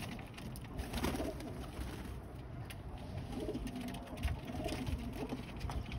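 Domestic pigeons cooing, with several low coos at intervals.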